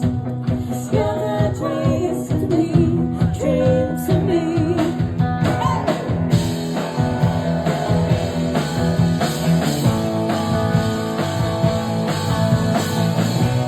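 Rock band music with singing over a steady drum beat; the sound grows fuller about halfway through.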